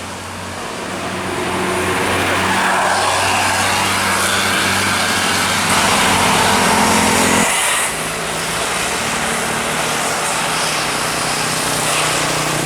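Bus passing close by: its engine and tyre noise swell over a few seconds, then drop off suddenly about eight seconds in, leaving an engine running steadily.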